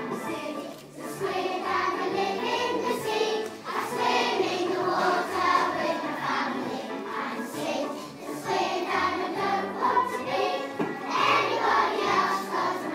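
A class of four- and five-year-old children singing a song together in unison, with low accompanying music under their voices.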